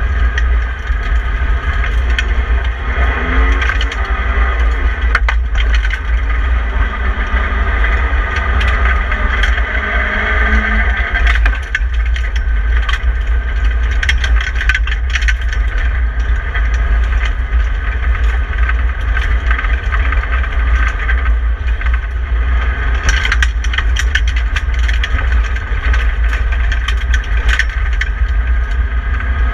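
In-cabin sound of a BMW E30 318i rally car driven hard on a gravel stage: its four-cylinder engine is running under load, its pitch climbing and shifting several times in the first third, over a heavy steady rumble. Sharp ticks and rattles from gravel striking the car are scattered throughout, thickest about two-thirds of the way in.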